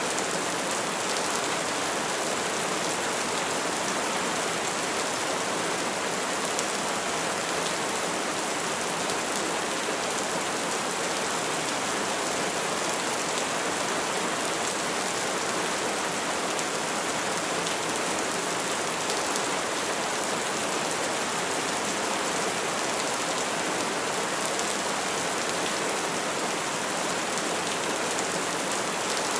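Steady rain falling on surfaces, an even hiss of many drops with no thunder.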